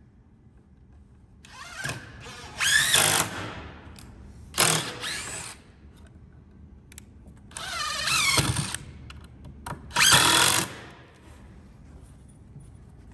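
Cordless drill driving screws into wood: about four bursts of the motor, each a second or two long with its whine gliding up and down in pitch, separated by short pauses.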